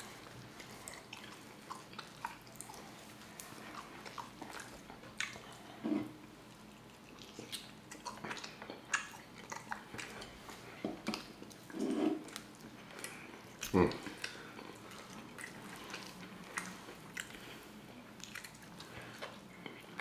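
Close-miked eating sounds: chewing, lip-smacking and small wet clicks as jerk chicken is bitten and pulled off the bone by hand. A few brief vocal sounds come about 6, 12 and 14 seconds in.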